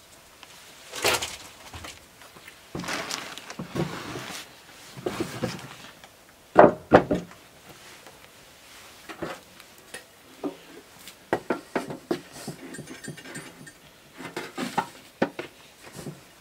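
Metal buckets and a large metal pot knocking and scraping against each other and the wooden boards they stand on, with the rustle of ground wheat being handled. The sound comes in irregular knocks and clatters, loudest a little past the middle.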